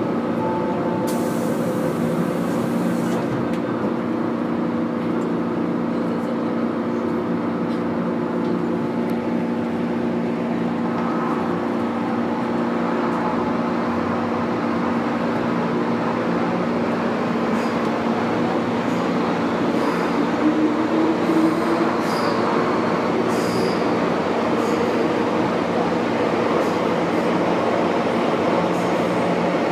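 MTR Kwun Tong line M-Train running in service, heard from the cab of car A205: steady traction-motor hum under wheel-and-rail noise. The running noise grows fuller about ten seconds in, and a short rising tone comes about twenty seconds in.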